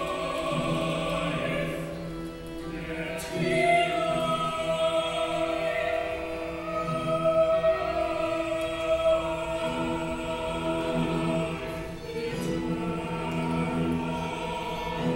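Opera music: a choir singing slow, sustained chords to the words "Yet life, come life eternal", the harmony shifting about three seconds in and again near the end.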